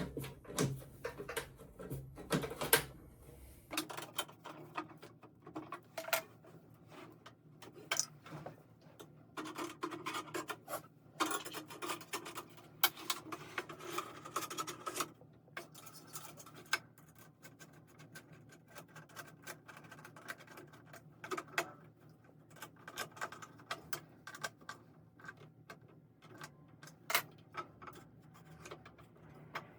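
Irregular clicks, knocks and scraping of small metal parts being handled, as the diesel heater's flexible exhaust pipe and its Jubilee (worm-drive hose) clip are fitted.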